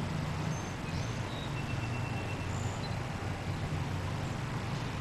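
Steady low hum and hiss of background noise on the lawn, with a few faint, short, high whistle-like chirps in the first few seconds.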